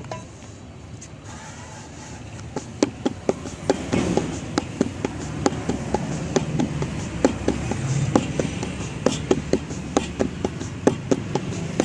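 Hands patting sorghum (jowar) roti dough flat, a quick even run of sharp slaps about three a second that starts a couple of seconds in.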